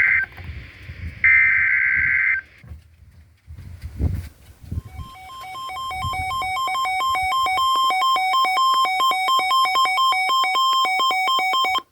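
Emergency Alert System weather warning tones. First come the tail of one burst and then one more full burst of the SAME header's screeching digital data tones, each about a second long. After a short pause, an alternating two-pitch electronic alert tone fades in, sounds for about seven seconds and cuts off abruptly, signalling that the voice warning is about to follow.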